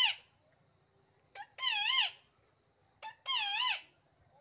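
Pet parrot screeching in agitation: harsh calls with a wavering pitch, about every one and a half seconds. Each call is led by a short chirp. A call is just ending at the start, and two more follow.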